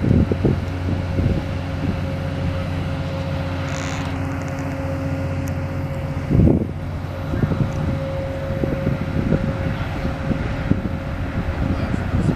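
Steady low drone of the Lake Express high-speed catamaran car ferry's diesel engines as the vessel moves past, with a held hum over it. Wind buffets the microphone at the start and again about six and a half seconds in.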